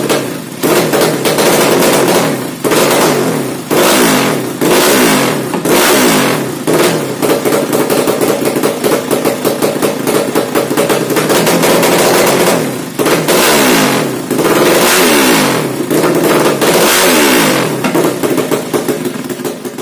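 Yamaha Jupiter drag bike's bored-out 200cc carburetted four-stroke engine revved hard again and again through a new racing exhaust. It is loud, rising and falling back between throttle blips, with quicker blips in the second half.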